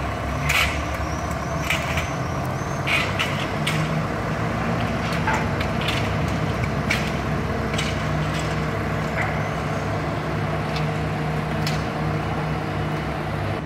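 A Liebherr mobile crane's diesel engine runs steadily under load while it hoists a personnel basket. About a dozen brief sharp noises are scattered irregularly over it.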